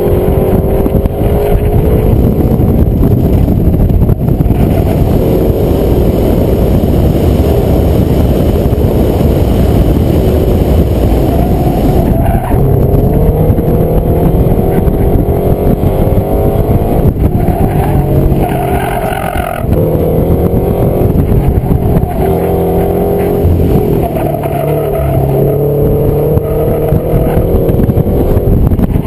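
Subaru BRZ's 2.0-litre flat-four engine under hard driving on an autocross course, the revs rising and falling as it accelerates, shifts and slows between cones. A short tyre squeal comes about eighteen seconds in.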